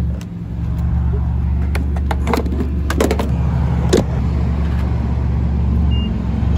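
A steady low hum runs under a series of clicks and knocks as the fuel nozzle is handled and the truck's fuel door is pushed shut. About six seconds in, the gas pump's button gives one short beep.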